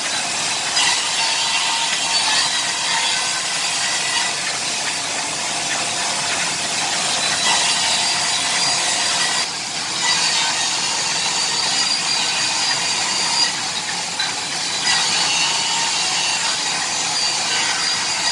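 ECT 86A double-end cutting and milling machine running, its saw blades and milling cutters cutting panels fed through continuously: a steady, high-pitched cutting noise with a whine, dipping briefly twice.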